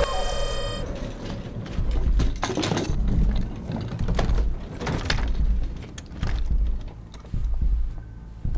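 Film sound design: an electronic tone fades out in the first second, then a low bass rumble comes and goes in pulses of about a second, with mechanical clanks and rattles scattered through it.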